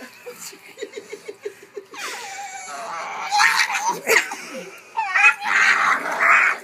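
A puppy crying and yelping in high, wavering wails as its nails are clipped. A person laughs in short, rapid bursts at the start.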